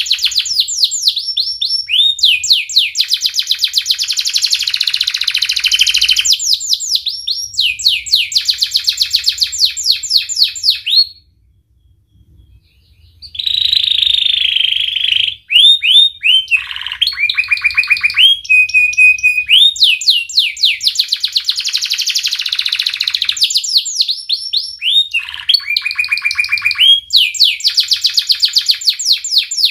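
Yellow canary singing: long, rapid, high-pitched trills of repeated notes, varied from phrase to phrase with a few short steady whistled notes. The song breaks off once for about two seconds.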